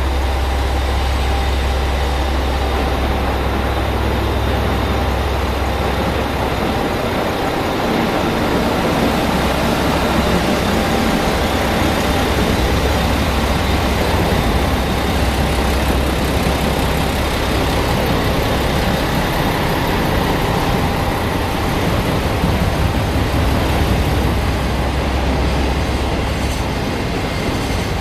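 Chizu Express HOT7000 series diesel railcar, its engines running steadily with a low hum.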